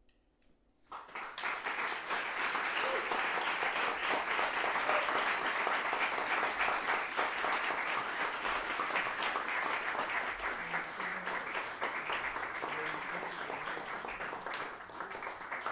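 Audience applauding, breaking out suddenly about a second in after a moment of near silence and then going on steadily.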